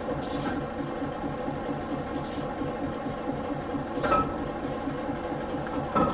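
Industrial Brownhoist 250-ton railroad wrecking crane's engine running with a steady, fast low beat, heard inside the machinery house. Short hisses of air come about every two seconds as the operator works the air-operated controls.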